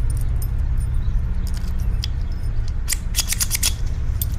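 Key worked in a new padlock: small sharp metallic clicks, a quick run of them about three seconds in as the lock is operated, over a steady low hum.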